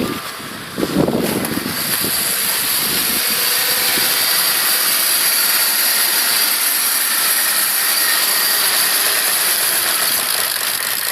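Jaguar S-Type 3.0 V6 engine cold-started at -32°: it runs unevenly for a second or so, then settles into a steady fast idle with a high whine over it. The hard cold start is put down to fuel injectors in need of cleaning.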